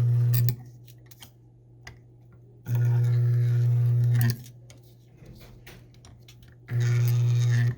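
Sunstone 5.0 kVA AC spot welder humming as its molybdenum roll-spot wheel welds two copper foils together: a steady low hum that switches on and off abruptly, cutting off about half a second in, running again for about a second and a half in the middle, and starting again near the end. Small clicks and rustles of handling between the passes.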